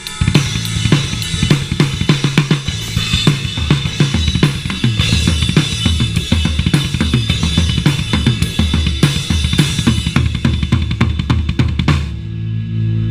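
Live band jamming: a drum kit plays a busy beat of kick, snare and cymbals over a steady low bass line. The drums stop suddenly about a second before the end, leaving bass and guitar notes ringing. Heard through a chest-mounted GoPro's own microphone.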